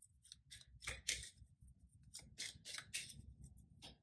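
Tarot cards being handled: a faint, irregular string of short, crisp card snaps and slides, about three a second.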